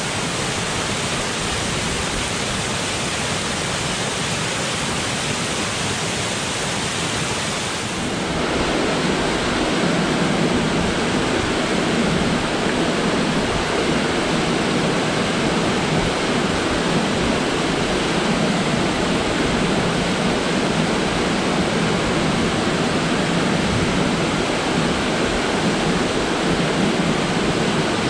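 Waterfall pouring into a rocky plunge pool, a steady rushing of water. About eight seconds in it changes to a larger, louder fall with a fuller rush.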